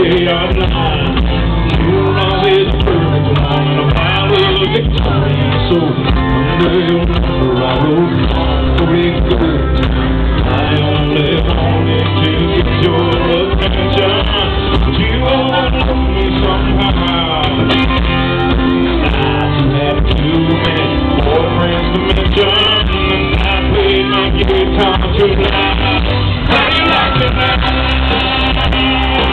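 Live country band playing loud through an arena sound system, with a lead singer, heard from inside the crowd.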